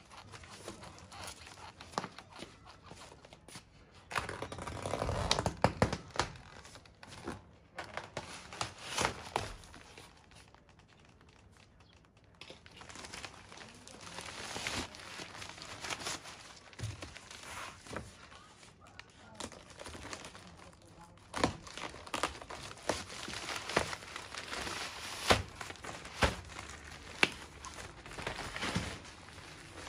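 Packaging being unwrapped and torn off, crinkling and ripping, with irregular knocks and thuds from handling. It goes quieter for a couple of seconds about a third of the way in.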